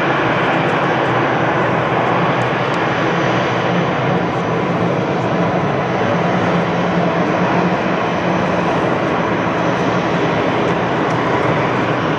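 Jet airliner engines running with a loud, steady, unchanging noise.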